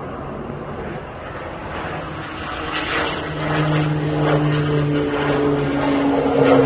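Propeller engines of water-scooping firefighting planes droning as they skim the lake, against a rough noise. From about halfway through, one engine note grows louder and its pitch falls slightly as a plane passes.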